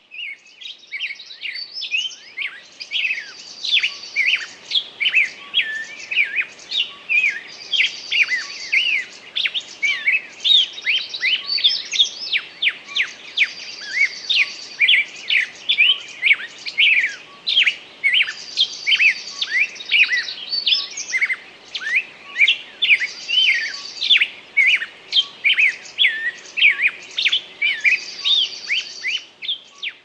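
Songbirds singing: a dense, continuous stream of quick chirps and whistled notes, with a brief high trill that comes back about every five seconds.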